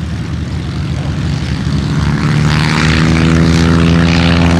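Auster AOP.9 light aircraft's piston engine and propeller running steadily at taxi power. It grows louder over the first three seconds as the plane taxis close past, then holds steady.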